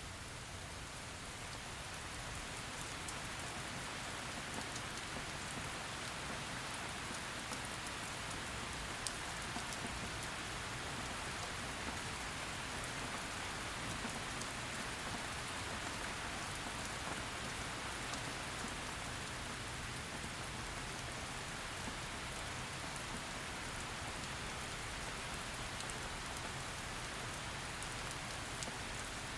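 Heavy rain falling steadily in an even hiss, with scattered sharp drop taps on top.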